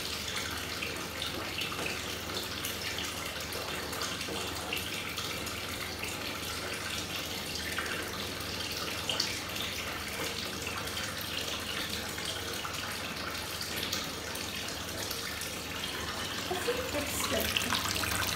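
Lush 'Shoot for the Stars' bath bomb fizzing as it dissolves in bathwater: a steady fizzing hiss full of fine crackles, growing louder near the end.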